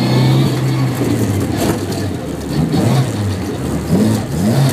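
Car engine heard from inside the cabin, revving up and down as the car is driven hard through tight turns; the pitch falls in the middle and climbs in quick rises near the end.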